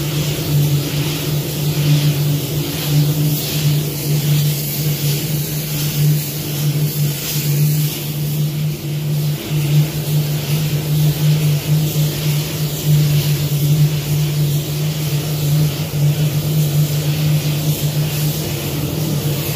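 Compressed air hissing steadily from a hand-held air gun used on a car's freshly painted door panel, over a steady low hum.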